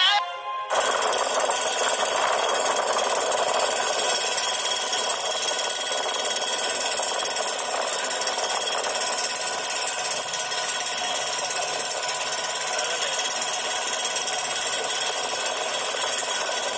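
Motorcycle and scooter engines running together in a loud, steady, high-pitched buzz. It starts suddenly about a second in.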